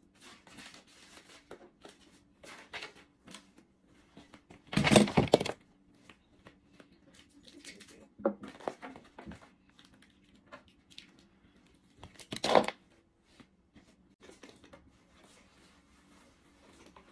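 Household cleaning sounds: candle jars, papers and other small things being picked up, shuffled and set down on a wooden coffee table, with paper rustling and a few light knocks. Three louder bursts of handling noise stand out, about five, eight and twelve seconds in.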